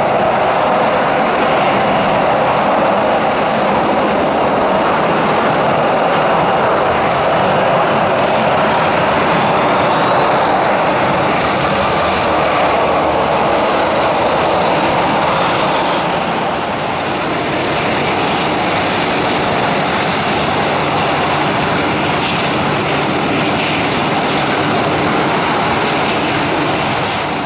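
Boeing 737-400's CFM56-3 turbofan engines running at taxi power as the jet rolls past, a loud steady engine noise with whine. A higher whine rises and falls about ten to sixteen seconds in, after which thin high tones hold on.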